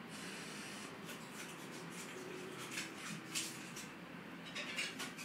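Faint room hiss with a few short, scratchy rustles and scrapes, the loudest a little before the middle and near the end.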